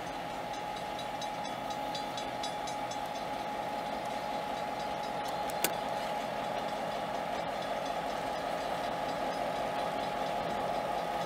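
Diesel locomotive in Norfolk Southern paint running as it rolls slowly closer, growing gradually louder, with a steady whine through it. A single sharp click comes about halfway through.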